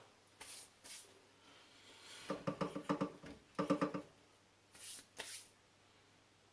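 Metal parts and a hand tool being worked on a drill press: two clusters of rapid metallic clicks with a ringing tone in the middle, with short scraping sounds before and after.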